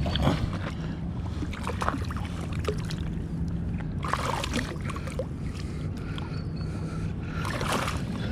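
Water splashing in short bursts as a hooked bass thrashes at the surface during the fight, the clearest splashes about four seconds in and near the end, over a steady low hum.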